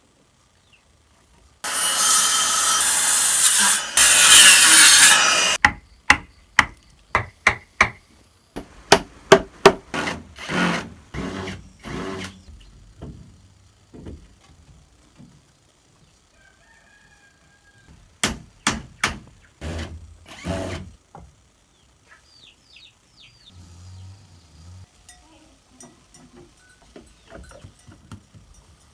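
Wood being worked by hand: about four seconds of steady sawing, then groups of sharp knocks on wood, several a second. A chicken calls briefly between the groups of knocks.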